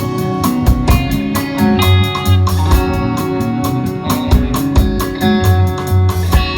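Band music in an instrumental passage between sung lines: guitars over bass and drums with a steady beat.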